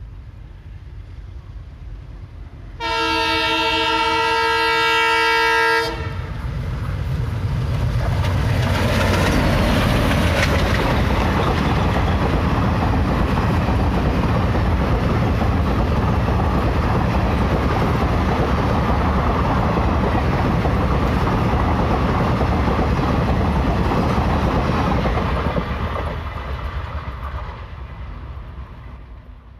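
An Indian Railways diesel locomotive's horn sounds for about three seconds. A passenger train then runs close past, with loud rumbling and clickety-clack of the coach wheels over the rail joints, fading away near the end.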